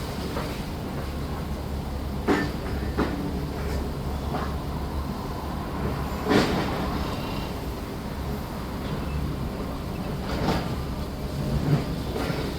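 Demolition machinery with a diesel engine running steadily, with sharp clanks and knocks of debris or metal striking now and then, five times.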